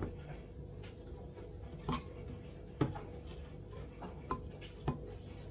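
A few light, scattered knocks and clicks of a utensil against a mixing bowl as a baking mixture is worked by hand, over a faint steady hum.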